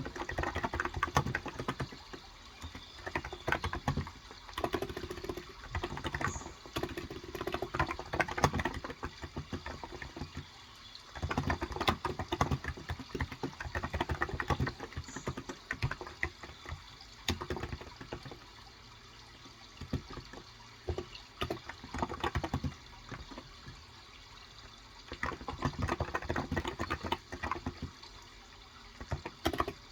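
Typing on a Cox Endeavor electro-capacitive keyboard with light 35 g switches, in bursts of rapid keystrokes separated by short pauses.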